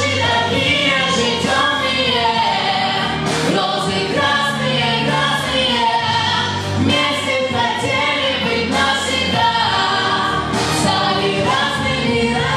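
A woman and a man singing a pop song together into microphones as a duet, over a steady instrumental accompaniment with a low bass line.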